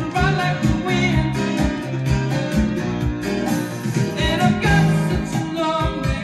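A vinyl record playing on a Micro Seiki MB-12 turntable with a Shure cartridge: a song with singing and guitar over a steady beat.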